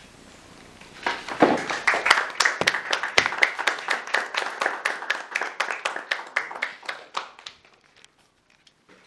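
Small audience applauding. The clapping starts about a second in and dies away near the end.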